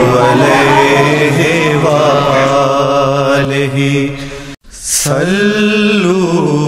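A single voice chanting a slow devotional melody in long, wavering held notes. It cuts off abruptly for a moment about four and a half seconds in, then resumes.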